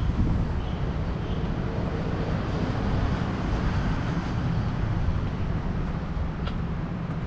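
Steady low rumble of wind buffeting the microphone of a moving camera, over faint outdoor street noise. A few faint high chirps sound in the first second and a half, and a short click comes near the end.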